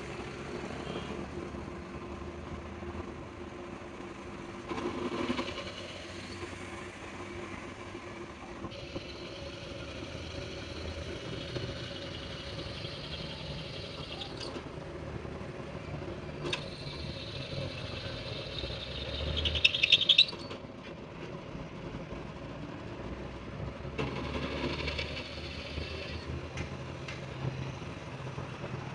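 Vehicle engines running steadily, with a few sharp clicks and a louder, crackling burst that rises and stops abruptly about twenty seconds in.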